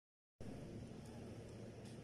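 Faint steady background noise, mostly low rumble with a light hiss, starting abruptly after a split second of total silence. A few faint ticks come through about a second in and again near the end.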